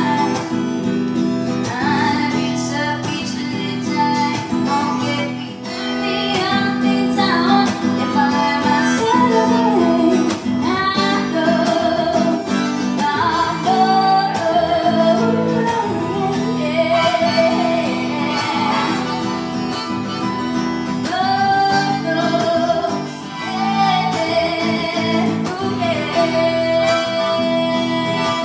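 Live acoustic guitar strummed under a woman's singing voice.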